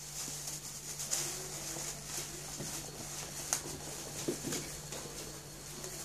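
Golden retriever puppies moving about on a tiled floor, with scattered clicks and patter and a few short, faint whimpers, over a steady low hum.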